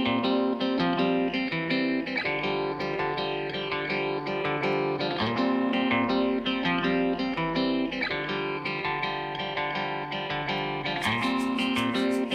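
Background music led by a plucked guitar, a light children's tune; a brighter, crisper layer comes in near the end.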